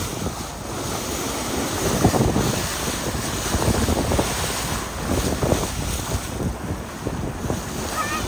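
Wind buffeting the microphone over the rush and splash of sea water around a moving boat, rising and falling in gusts.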